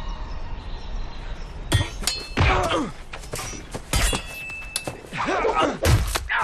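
Sabre duel: steel blades clashing with a metallic ring, heavy blows landing about every two seconds, and a man's pained grunts and shouts between the hits.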